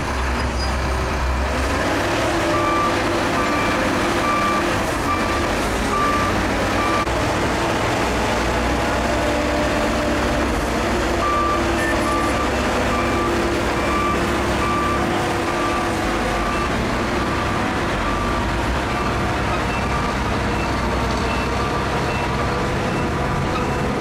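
Crawler bulldozer diesel engine running steadily under load while pushing earth, with a reversing alarm beeping about twice a second in repeated runs.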